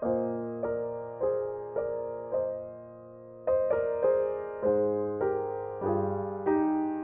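Slow solo piano music, with notes struck about twice a second, each ringing and fading. There is a brief pause near the middle, and lower bass notes join in the second half.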